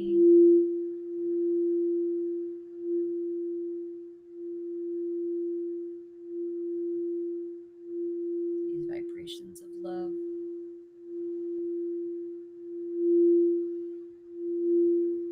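Singing bowl sounding one sustained, steady tone that swells and fades in slow waves. About nine seconds in there are a few brief faint rustling or clicking sounds.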